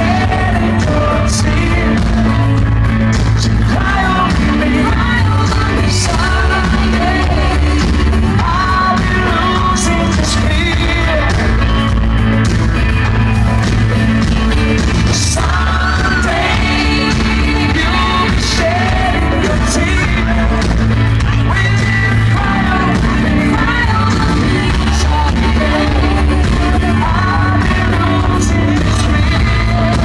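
Live pop-rock band playing a song: male lead vocal over electric guitar, bass guitar, keyboards and drums, with cymbal crashes through it.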